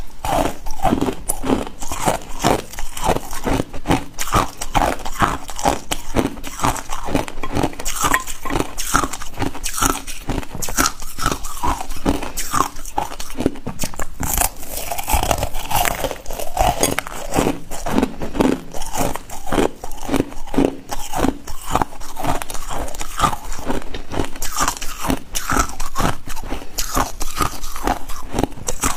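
Ice being bitten and chewed: a rapid, continuous string of sharp cracks and crunches.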